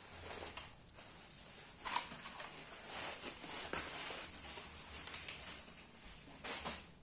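Rustling and handling of packaging and parts, with scattered clicks and taps; the loudest is a sharp click about two seconds in, with another pair of knocks near the end.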